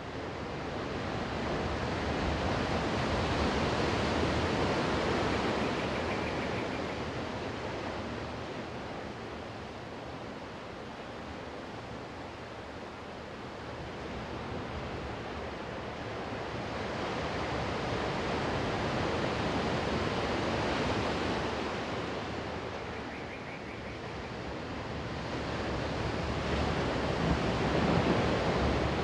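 Sea surf washing onto a beach, rising and falling in slow swells, the loudest near the end.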